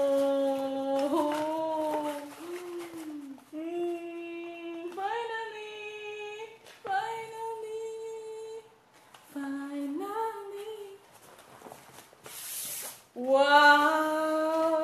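A woman vocalizing without words in a run of long held notes, some sliding up or down in pitch, with short breaks between them. A brief rustle of poster paper comes near the end.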